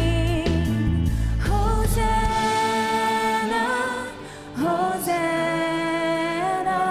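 Live worship band music with long held sung notes over sustained keys; the bass drops out about two and a half seconds in, leaving the voices and keys.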